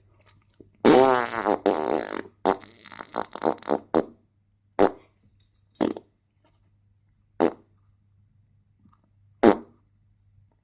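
Fart sounds: a long, loud one with a wavering, falling pitch about a second in, straight into a rapid string of shorter ones. Then single short blasts spaced one to two seconds apart, the last one near the end. A faint steady electrical hum sits underneath.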